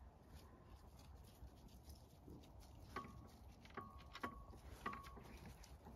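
Near silence with a faint low hum, broken in the second half by a few faint sharp clicks, three of them each followed by a brief ringing note.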